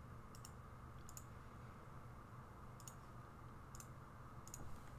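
Faint computer mouse clicks, about six spread over a few seconds, above a low steady hiss.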